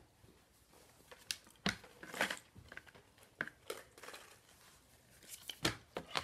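Hard corn taco shells being handled and cracked: a series of short, crisp cracks and crinkly rustles at uneven intervals.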